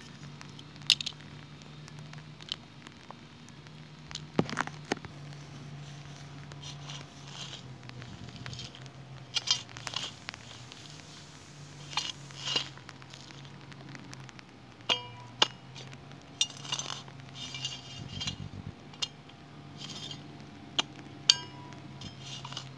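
Small shovel scraping and digging stony soil: irregular scrapes and sharp clinks of the blade against pebbles, some ringing briefly, over a steady low hum.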